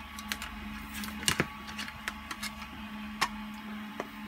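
Hard 3D-printed plastic parts clicking and knocking as they are handled and fitted together: a handful of separate sharp clicks, over a low steady hum.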